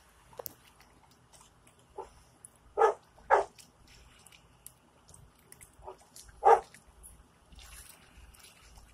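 Dog barking in short single barks: two in quick succession about three seconds in and a louder one about six and a half seconds in, with a few fainter yaps between.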